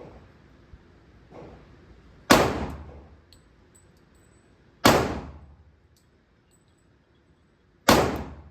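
Three slow, deliberate pistol shots, about two and a half to three seconds apart, each a sharp crack with a short ringing echo. Two much fainter bangs come in the first second and a half.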